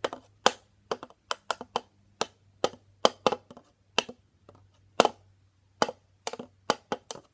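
Homemade drum struck with small sticks, playing a simple beat: sharp taps about three a second, unevenly spaced, several in quick pairs and triples.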